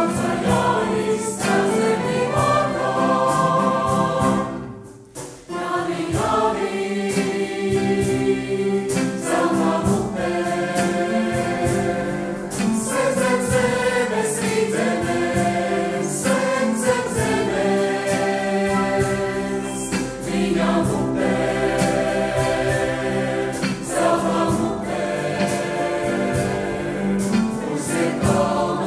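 Women's folk ensemble singing a Latvian folk song in several-part harmony over a steady held low drone note, with a brief break about five seconds in.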